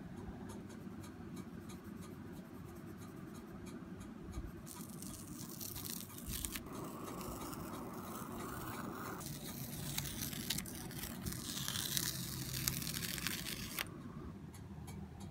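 Paper rustling and scraping as a spiral sketchbook with a painted page is handled and moved, starting about four and a half seconds in and stopping near the end. Under it run a steady low hum and faint, regular ticking.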